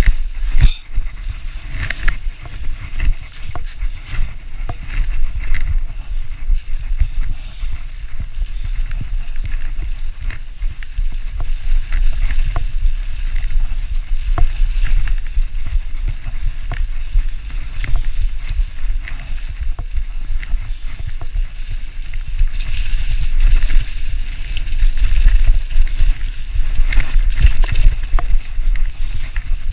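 Mountain bike ridden fast over a leaf-covered forest trail, heard from a camera riding with it: a steady rumble with wind on the microphone, tyres crackling through dry leaves, and frequent rattles and knocks from the bike over bumps. It gets louder over the last several seconds.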